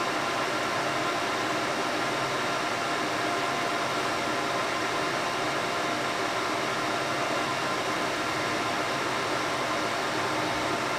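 Steady fan noise with a few faint steady hum tones under it.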